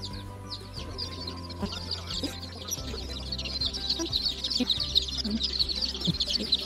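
A brood of Rhode Island Red and Barred Rock baby chicks peeping in a brooder: many quick, high peeps overlapping, growing denser and louder from about halfway through.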